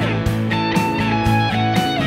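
Background music: guitar over a steady beat of about two hits a second, with a note sliding down in pitch near the start.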